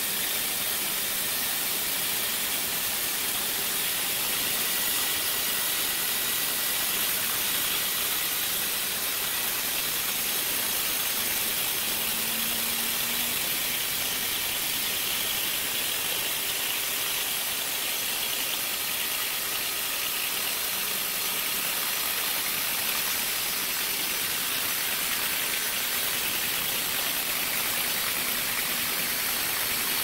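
Large horizontal band sawmill sawing lengthwise through a big log: a steady, high hiss of the blade cutting, with the machine running under it.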